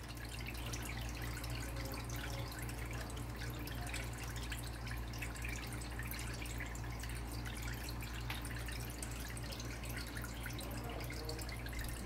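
Small tabletop water fountain trickling and dripping steadily over its stacked slate tiers, over a steady low hum.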